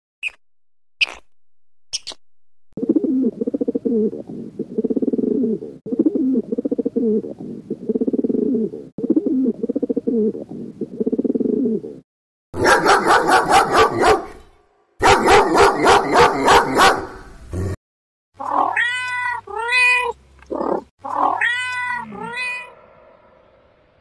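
Several different animal calls in turn: three brief chirps, then a low pulsing call repeated about every second and a half, then two stretches of very fast pulses, and near the end several short pitched calls that rise and fall.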